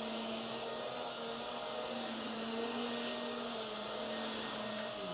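Hoover WindTunnel Tangle Guard upright vacuum cleaner running steadily, its motor giving a high, steady whine over the rush of air. Near the end a lower hum in the sound drops away.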